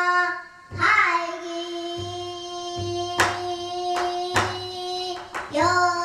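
A young girl sings pansori, accompanied by a buk barrel drum. After a short break near the start she holds one long, steady note, while the drummer lands a few sharp strokes near the middle; a new phrase begins near the end.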